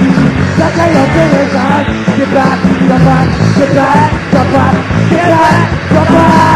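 Ska-punk band playing a loud demo take: guitar, bass and drums under a shouted lead vocal. A chord is held near the end.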